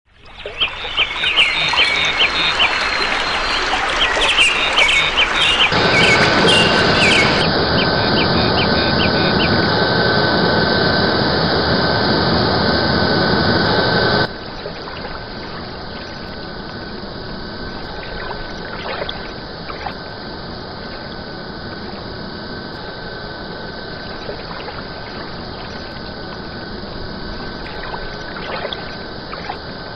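Nature soundscape of small birds chirping rapidly over a steady rush of running water. The chirping stops about seven seconds in. Halfway through, the water sound drops abruptly to a quieter steady level, with a thin steady tone underneath.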